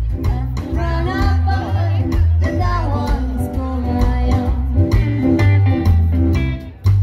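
Live rockabilly band playing through a PA: a woman singing over electric guitars, upright double bass and drums. The music stops briefly near the end.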